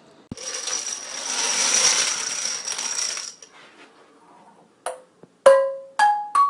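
Metal cooking pots struck four times about half a second apart, each ringing briefly at its own pitch; the second strike is the loudest. Before the strikes, a loud hiss with a thin high whine runs for about three seconds.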